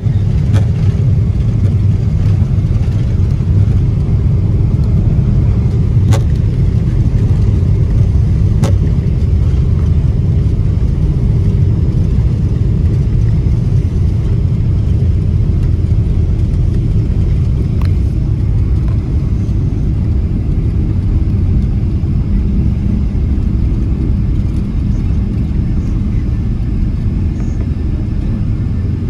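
Airliner cabin noise as the plane taxis after landing: a steady low rumble from the engines and the rolling wheels that eases a little toward the end, with a couple of faint clicks.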